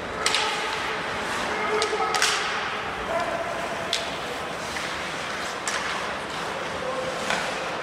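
Ice hockey play: several sharp clacks of sticks striking the puck and ice, with skate blades scraping, over arena crowd chatter.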